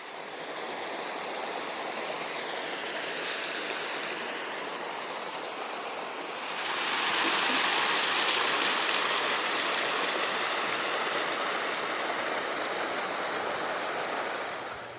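Waterfall and creek water rushing steadily. The rush grows noticeably louder about six seconds in, then eases back a little.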